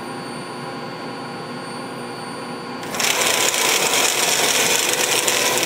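1985 Bridgeport R2E3 (Boss 8) CNC mill humming at rest. About three seconds in, its axis stepper motor drives the table through a commanded move for about three seconds, a loud harsh whir that stops abruptly.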